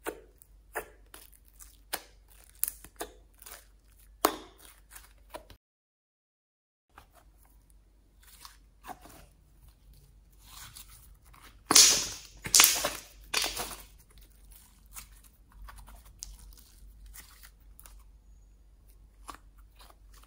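White slime being poked, stretched and folded by hand, giving a string of short sticky pops and crackles as it pulls apart and air pockets burst. The loudest run of pops comes a little past the middle, and the sound drops out completely for about a second near six seconds in.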